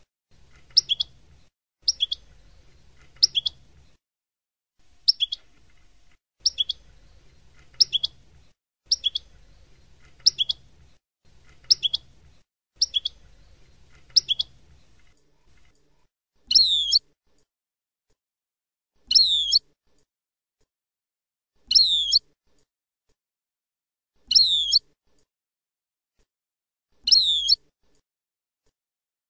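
European goldfinch song in the Palestinian 'Abu Khalil' style, a repetitive tutor recording for teaching young goldfinches. Short high calls come about once a second, often in pairs. About halfway through they give way to a longer call with falling, wavering notes, repeated about every two and a half seconds.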